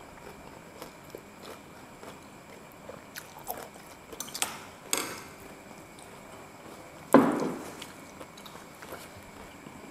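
Eating at a table: chewing, and forks clicking and scraping on a shared plate of snacks. About seven seconds in there is one sudden loud burst that fades quickly.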